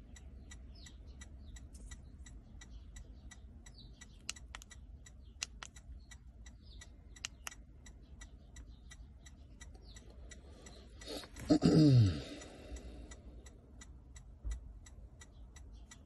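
Toyota Prius hazard-light flasher ticking steadily, a few even ticks a second. About eleven seconds in, a brief, louder sound falls in pitch.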